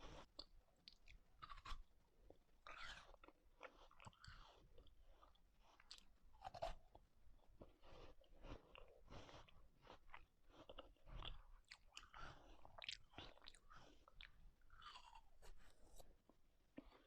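Faint close-up mouth sounds of someone eating ice cream: chewing with many short, irregular wet clicks and smacks.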